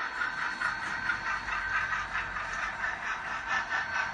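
Model steam locomotive and passenger cars running on layout track: a steady whir with a fast, even rattle of the wheels on the rails.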